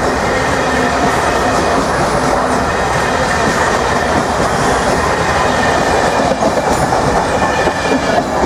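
Passenger coaches of a departing express train rolling past close by, a steady loud rumble of wheels on rail with scattered clacks. The last coach passes near the end.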